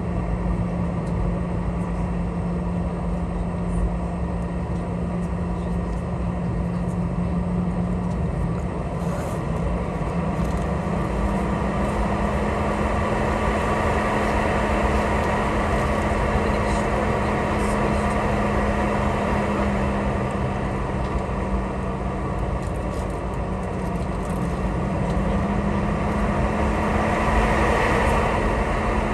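Cabin noise of a Boeing 717 taxiing: its rear-mounted Rolls-Royce BR715 turbofans run at low power as a steady hum over a broad rumble and air hiss. The hum's pitch steps slightly higher about ten seconds in and again near the end.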